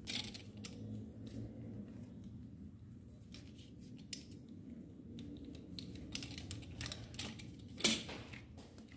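Handling noises of momo dough being rolled, cut with a pizza cutter wheel and pulled apart on a silicone mat: scattered light taps and clicks, with one louder sharp knock near the end.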